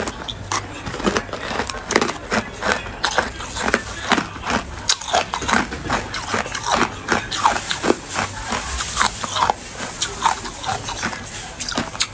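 Matcha-coated ice being bitten and chewed close to the microphone: a dense, irregular run of sharp crunches.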